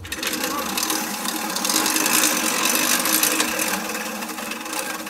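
Manual push reel mower being pushed, its spinning cylinder blades cutting tall grass with a steady mechanical whirring clatter, loudest in the middle.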